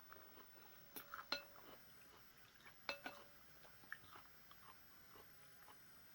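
Someone eating a bowl of noodle soup: quiet chewing and small mouth clicks, with a utensil clinking against the bowl and ringing briefly about a second in and again about three seconds in.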